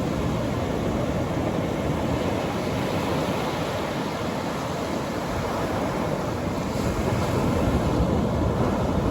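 Atlantic Ocean surf breaking and washing on the beach, a steady rushing wash that swells a little about seven seconds in.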